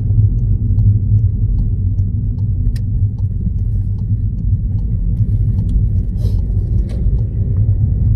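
Steady low road and engine rumble of a car being driven, heard from inside the cabin, with faint regular ticking and a few brief clicks.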